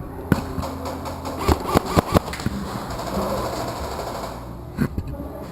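Scattered sharp cracks of airsoft gunfire and BB hits, a cluster in the first two seconds and one more near the end, over a steady low mechanical hum.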